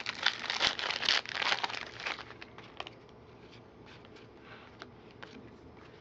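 A trading-card pack wrapper being torn open and crinkled in the hands, a dense crackling for about two seconds, followed by a few faint clicks as the cards are handled.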